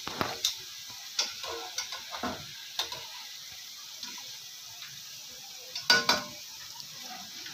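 Jalebis sizzling as they deep-fry in hot oil in a steel pan, a steady crackling hiss. A few sharp clicks and knocks cut through it, the loudest about six seconds in.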